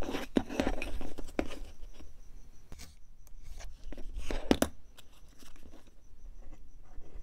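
Hobby knife cutting through a balsa wing rib along a steel ruler: short scraping cuts with a few sharp clicks in between, the loudest about halfway through. The rib's leading edge is being trimmed down a little at a time to fit.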